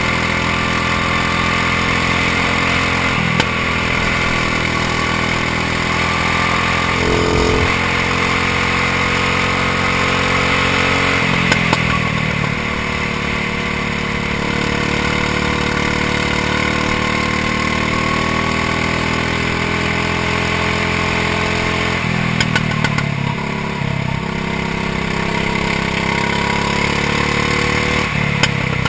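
Go-kart engine running hard at speed. Its pitch drops sharply when it comes off the throttle four times for corners, then climbs back as it accelerates.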